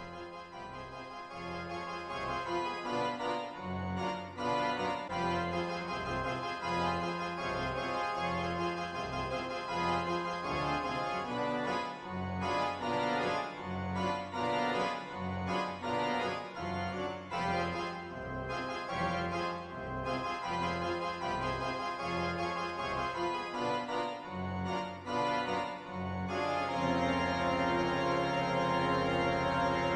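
Organ-led background music with a moving line of low notes; near the end it settles into held chords and gets a little louder.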